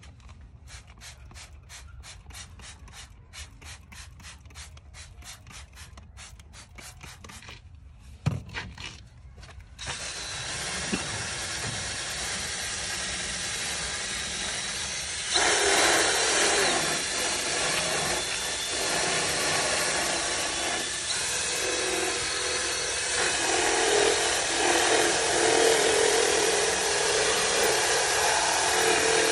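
A trigger spray bottle squirting rapidly many times, about two or three squirts a second, with one louder knock near the end of the spraying. Then a cordless drill with a scrub-brush attachment starts spinning steadily. It becomes louder and rougher once the brush is pressed onto the car's vinyl door panel, scrubbing the upholstery.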